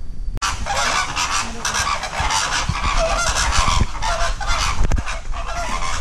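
A flock of birds honking and calling over one another, loud and continuous, starting abruptly about half a second in.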